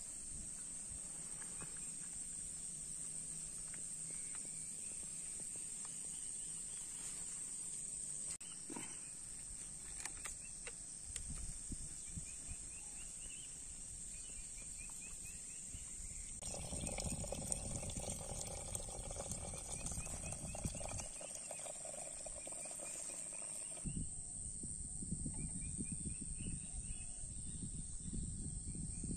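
Steady high-pitched insect drone, with wind rumbling on the microphone in gusts during the second half.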